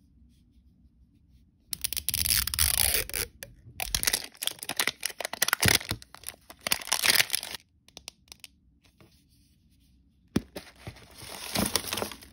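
Thin plastic film being torn and peeled off an L.O.L. Surprise toy ball, crinkling and tearing in close-up bursts. There is a pause of a few seconds before more tearing near the end.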